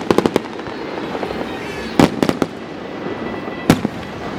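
Fireworks going off in sharp bangs and crackles: a quick run of cracks at the start, another cluster about two seconds in, and a single loud bang near the end.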